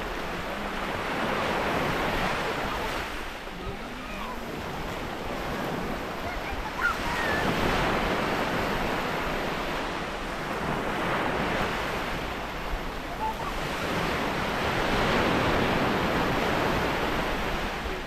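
Sea waves breaking and washing over a stony shore, the surf swelling and ebbing every few seconds. Wind on the microphone.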